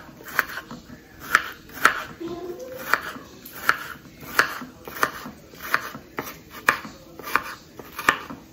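Kitchen knife slicing bitter melon on a wooden cutting board: a steady series of crisp knocks as the blade goes through the gourd and meets the board, about a dozen cuts at roughly one and a half a second.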